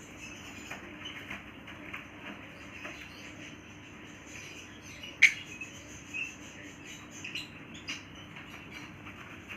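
A pet parrot playing close to the microphone: scattered small clicks and scratches from its beak and claws, with one sharp, loud click about five seconds in.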